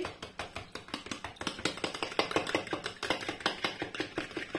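A fork beating an egg and almond-milk batter in a plastic bowl, the tines clicking quickly and evenly against the bowl's sides.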